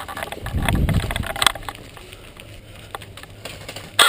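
A low rumble about half a second in and a sharp click, then, right at the very end, a rapid burst of automatic airsoft gunfire starts.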